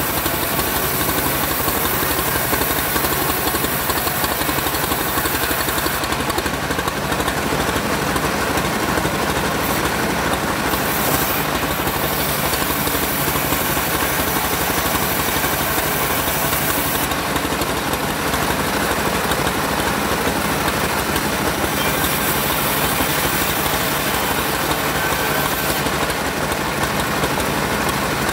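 Homemade bandsaw running steadily while sawing sengon wood: a continuous machine drone with a high hiss that thins out and comes back several times.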